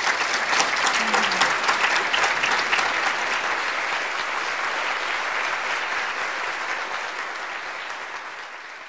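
Audience applauding, dense clapping that slowly fades away toward the end.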